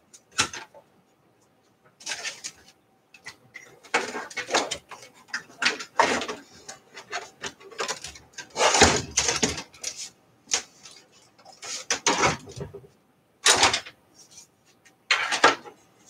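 Irregular clatter and rustling as computer hardware and cables are handled: plastic and metal parts knocked and shifted, and connectors pushed into place, in short uneven bursts.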